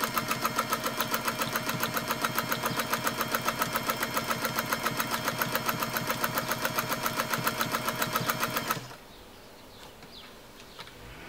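Bernina 117-K sewing machine running at a steady speed, sewing a fast, even rhythm of stitches over a steady hum. It stops abruptly about nine seconds in.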